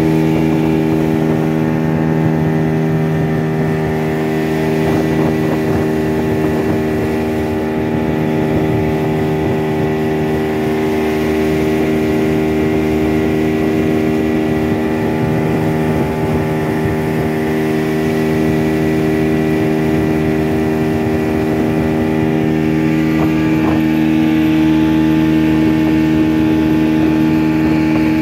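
Motorboat engine running at a steady, unchanging speed while the boat moves over the water.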